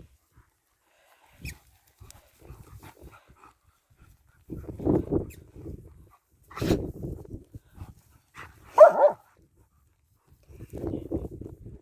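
A German Shepherd barking in four short bursts, telling off another dog during play, with the sharpest bark about nine seconds in.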